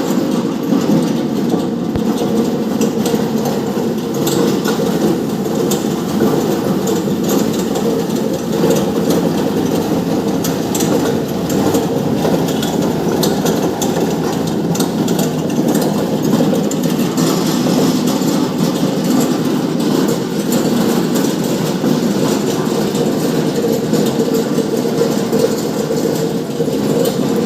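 Tilting-type stone wet grinder running: its electric motor turns the drum with the grinding stones inside, a steady rumble with a constant rattle of small clicks.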